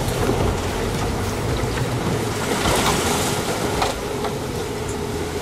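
Rough seas rushing along the hull of a small sailboat heeled in a gale, heard from inside the cabin, with the wind: a loud, steady rush of water and wind, and a couple of sharper splashes of breaking water near the middle.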